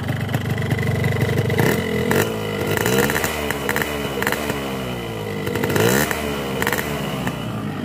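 Hot two-stroke motorcycle engine running at idle and revved up and back down twice. It sounds crisp, on a rich 10 ml-per-litre premix of two-stroke oil.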